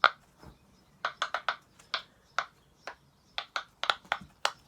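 Pop-it fidget toy being pressed bubble by bubble: a run of sharp, irregular pops, several a second.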